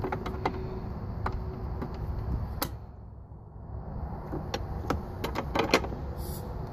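Sharp metal clicks and clinks of hydraulic quick-coupler fittings being handled and pushed together, several in quick succession near the end, over a steady low rumble.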